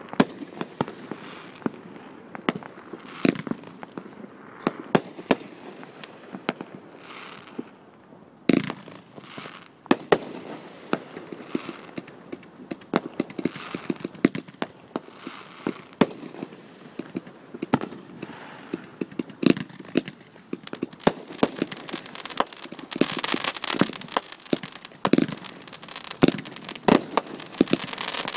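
Fireworks going off: many sharp bangs at irregular intervals over a continuous crackle, with the crackling growing denser about two-thirds of the way through.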